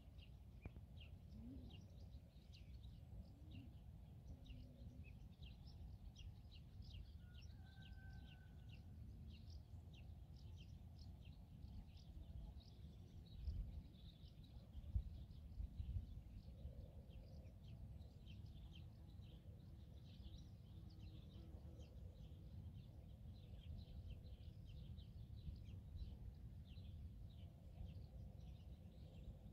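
Faint open-field ambience: steady, rapid high-pitched chirping over a low wind rumble, with a couple of brief bumps near the middle.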